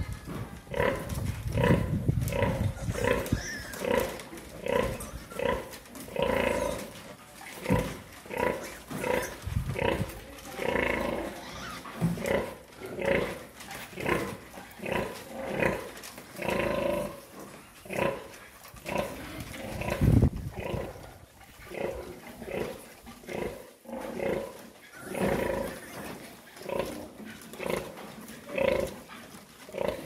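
A nursing sow grunting rhythmically, short low grunts repeated about once a second for the whole stretch while her piglets suckle. This steady run of grunting is the sow's nursing call, which goes with milk let-down.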